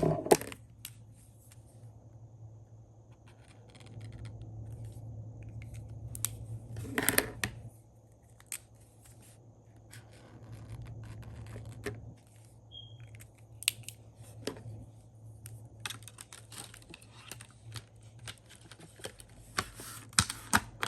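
Paper and stationery handling at a desk: scattered snips, scratches and peeling of stickers and paper, with light clicks, over a steady low hum. The handling gets busier near the end.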